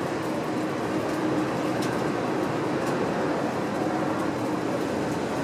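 Steady mechanical hum with an even rushing noise underneath, holding one level throughout.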